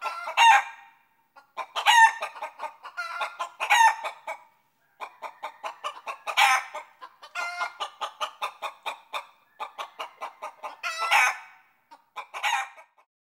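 Chicken clucking in quick runs of about six clucks a second, each run ending in a louder, drawn-out squawk, like a hen's cackle. This repeats about six times with short pauses.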